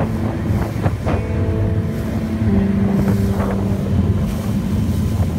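Wind buffeting the microphone and water rushing past on a moving ferry, over the steady low rumble of the ferry's engine, with a few held tones about one to four seconds in.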